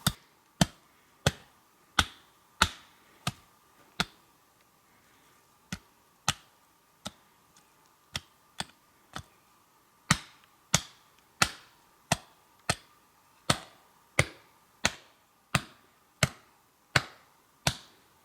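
A series of sharp knocks, each a single clean strike with a short ringing tail: spaced out and irregular for the first half, then steady at about three strikes every two seconds.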